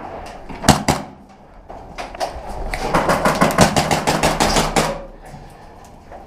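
Airsoft gun firing: two single shots in quick succession, then a rapid full-auto burst of about two seconds.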